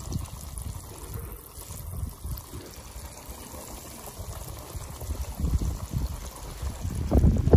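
Hot oil bubbling and sizzling as battered crappie deep-fries in the basket of an electric deep fryer, with a low rumble underneath and a few louder thumps near the end.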